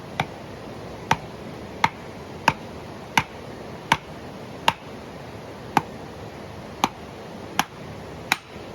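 Firewood being split by hand: eleven sharp knocks of a blade being struck into a log, spaced a little under a second apart.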